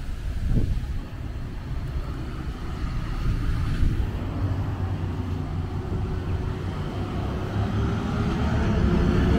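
Road traffic: a car engine running nearby, growing louder near the end as a vehicle approaches.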